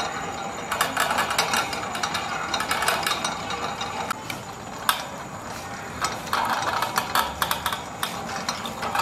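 Hand-cranked pedal-drive rig running: the roller chain rattling over its sprockets and the angle-grinder gearbox clattering as it spins a propeller in the air. The rattle is fast and continuous, with one sharper click about five seconds in.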